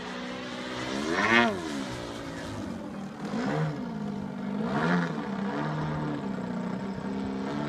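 Radio-controlled model airplane's motor and propeller buzzing as the plane manoeuvres, the pitch swooping up and down in three swells, loudest about a second and a half in.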